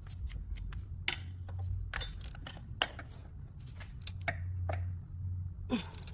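Hand ratchet or torque wrench clicking in irregular short runs as driveshaft bolts are run down and tightened, over a steady low hum.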